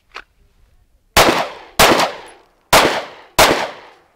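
Four pistol shots fired as two quick pairs, about half a second apart within each pair and about a second between the pairs: a timed two-shots-on-each-target drill.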